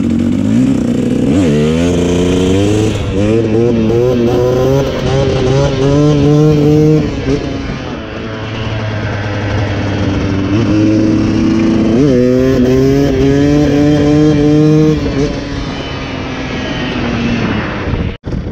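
Dirt bike engine accelerating up through the gears: the pitch climbs, drops back at each upshift and climbs again. This happens in two runs, with the throttle eased off between them and again near the end. A steady rush of wind noise lies under the engine, and the sound cuts out abruptly just before the end.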